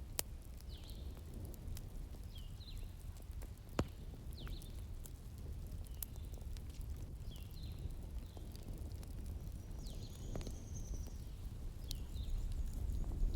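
Wood fire crackling in a fireplace: a low steady rumble with scattered sharp pops, the loudest about four seconds in and again about ten seconds in, and faint high chirps every second or two.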